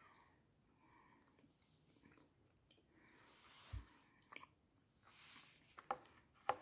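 Faint chewing of a soft foam candy Santa, with a few small wet mouth clicks scattered through.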